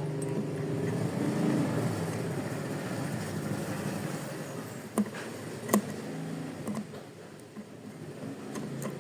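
An engine runs with a steady hum and fades away over several seconds, with two sharp clicks about five and six seconds in.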